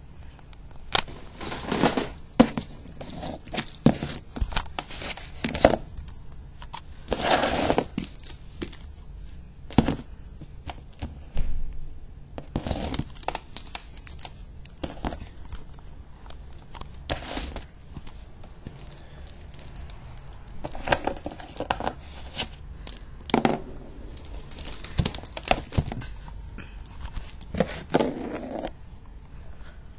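Irregular taps, knocks and crinkling rustles of plastic wrestling action figures being handled and knocked about on a cardboard box.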